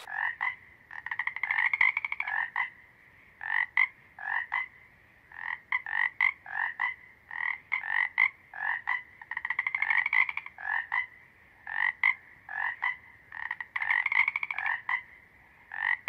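Frogs croaking: a run of short calls every half second or so, with a few longer trills made of rapid clicks.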